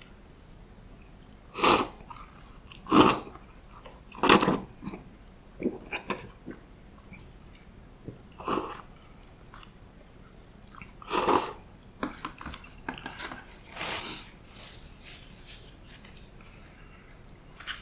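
Person eating kama-tama udon from the bowl with chopsticks: a series of short, loud slurps a second or more apart, with quieter chewing and mouth noises between.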